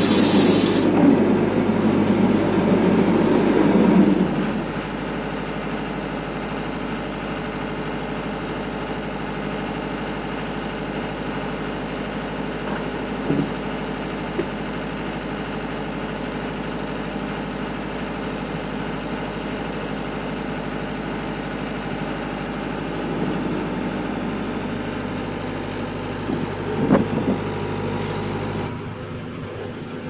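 Wood-Mizer LT70 electric band sawmill and its diesel generator running steadily between cuts, louder for the first few seconds, with a few short knocks in the middle and near the end.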